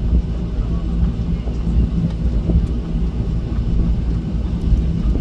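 Steady cabin rumble of a Boeing 737 airliner taxiing, its jet engines running at low power and heard from inside the passenger cabin, with a low hum and a few steady tones over it.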